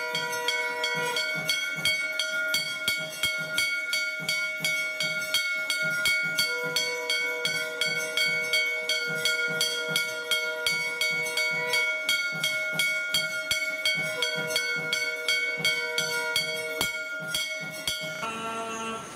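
Temple bells ringing rapidly and evenly through the lamp-waving aarti, about five strikes a second over a wash of held ringing tones; the ringing stops about a second before the end.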